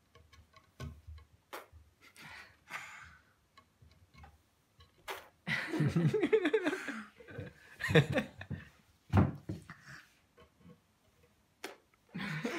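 A young girl whimpering and whining in a sulk, in short vocal bursts, the longest and loudest about six seconds in.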